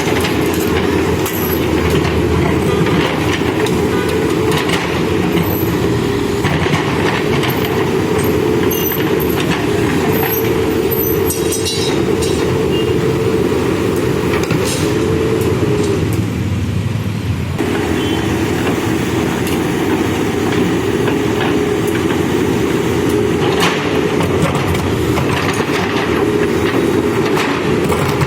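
Manitou backhoe loader's diesel engine running hard while digging and loading, with clanks and rattles of the working bucket and arm. The engine note drops briefly about two-thirds of the way through, then picks up again.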